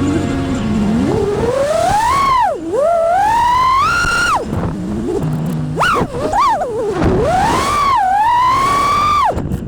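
Brushless motors of a 5-inch 6S FPV quad (RCinpower Wasp Major 1860Kv on Ethix props) whining up and down with the throttle, the pitch rising in long sweeps and dropping sharply on throttle chops several times.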